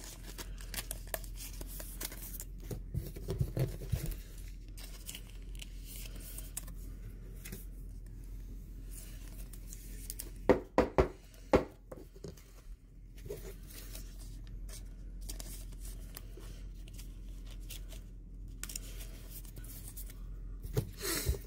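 Plastic trading-card pack wrapper being torn open and crinkled, with the cards rustling and clicking as they are handled and flipped through. Three louder, sharper sounds come close together about eleven seconds in.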